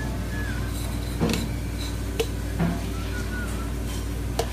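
Steady low machine hum with a few light knocks and taps, typical of plastic measuring jugs being handled on a steel counter.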